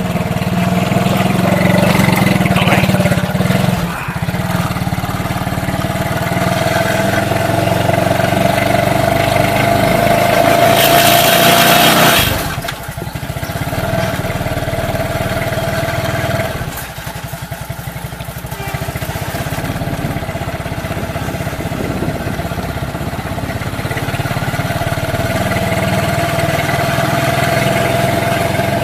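Motorcycle taxi's small engine running steadily while under way, with a short loud rush of wind noise about eleven seconds in.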